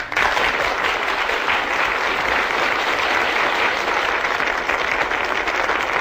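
Studio audience applauding, breaking in suddenly and continuing steadily.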